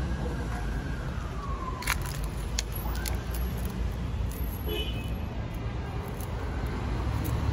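Steady low rumble of road traffic, with a faint tone sliding slowly downward in the first two seconds, a few sharp clicks around two to three seconds in, and a brief high chirp near the middle.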